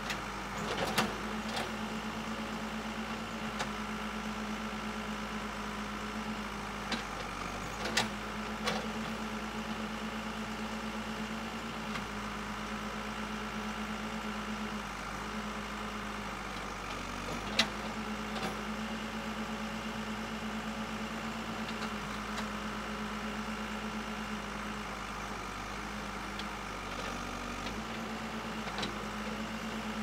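Case 580 Super L backhoe's diesel engine running steadily while the backhoe arm digs, with a handful of short, sharp knocks as it works, the loudest about a second in and again a little past halfway.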